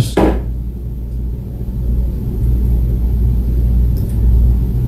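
A steady low rumble, with the tail of a man's spoken word at the very start and a couple of faint ticks about four seconds in.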